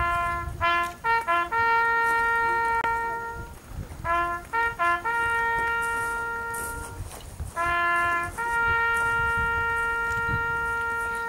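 Small brass band of trumpets, saxophone and low brass playing a slow piece in three phrases: a few short notes, then a long held note each time.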